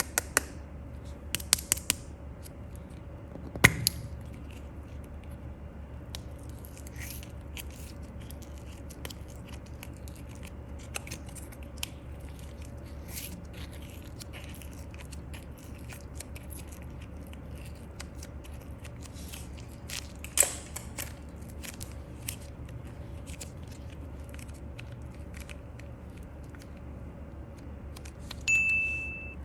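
Scattered small clicks and crackly taps over a steady low hum, with a short high beep near the end.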